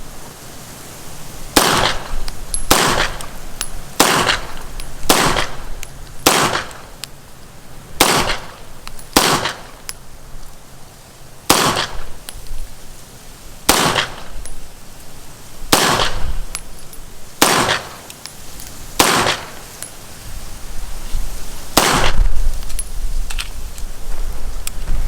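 SIG MCX rifle fired in slow, deliberate single shots, about a dozen sharp reports spaced one to two seconds apart, each with a short ringing echo.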